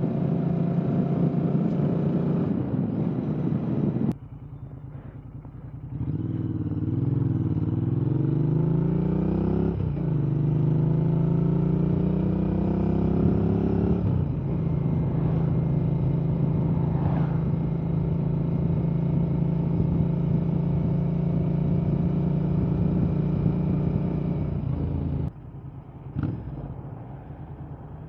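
Royal Enfield Interceptor 650 parallel-twin engine through an aftermarket S&S 2-into-1 exhaust, heard from the bike while riding. The engine note drops away about four seconds in and comes back. The revs climb, fall back once about ten seconds in as it shifts up, and climb again. It then holds a steady cruise and drops off near the end, with one short blip as the bike slows for a roundabout.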